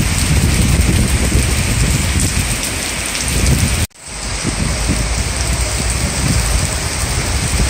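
Heavy rain pouring down onto paving stones and puddles, a dense steady hiss with a low rumble beneath it. The sound drops out for a split second about four seconds in at a cut, then carries on.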